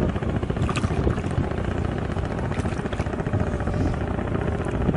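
Steady low drone of a boat engine, with a faint held tone running through it.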